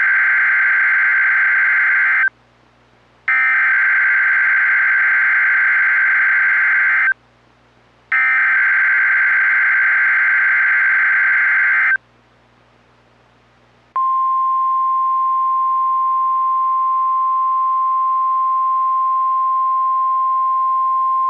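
Emergency Alert System broadcast tones from NOAA Weather Radio: three bursts of SAME digital header data, a harsh buzzing screech each about four seconds long with a second's gap between, then about 14 seconds in the steady 1050 Hz warning alarm tone begins and holds. Together they announce the start of a new alert broadcast.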